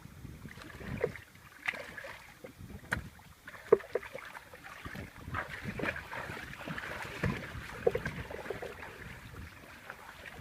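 Water sloshing and splashing, with scattered small knocks and splashes at irregular intervals.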